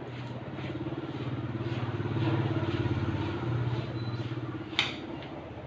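Commercial front-loading washing machine running, a steady low motor hum with a fine flutter that swells in the middle and eases off. A single sharp click comes near the end.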